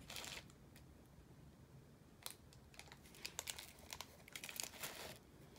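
Faint, scattered crinkling and soft ticks of a small plastic zip-top bead bag being handled.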